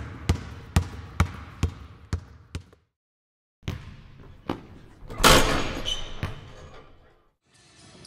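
A basketball dribbled on a hardwood gym floor, about two bounces a second, cutting out briefly about three seconds in. After it, a few more bounces and a louder scuffle with short sneaker squeaks, then background music fades in near the end.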